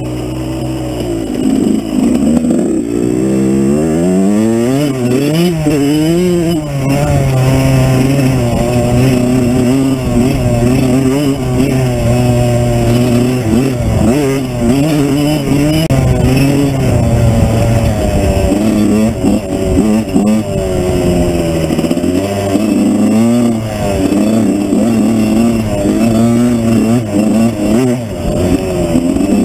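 Suzuki RM85 two-stroke 85cc dirt bike engine being ridden, its note rising and falling repeatedly as the throttle opens and closes, with steadier spells in between; it gets louder about two seconds in.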